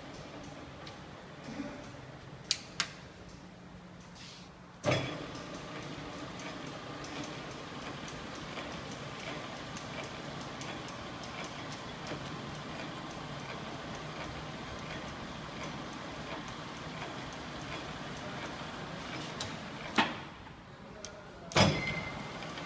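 Leblond Makino servo-shift engine lathe running under power with a steady hum and light ticking. A couple of clicks, then a loud clunk about five seconds in as an apron lever is thrown, after which the running sound is louder. Two more sharp clunks come near the end.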